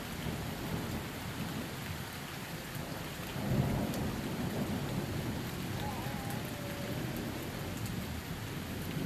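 Steady rain falling during a thunderstorm, with a low rumble of thunder swelling about three and a half seconds in and slowly fading.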